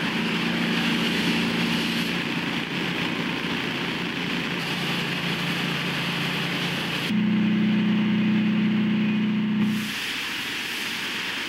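High-pressure hose washing mud off machinery and a concrete floor: a steady hiss of spray over a constant machine hum. The hum grows louder and changes about seven seconds in, and drops back near ten seconds.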